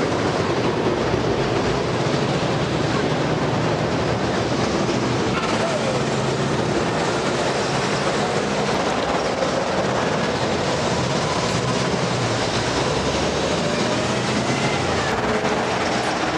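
Steady rumbling noise of a moving vehicle, with faint indistinct voices underneath.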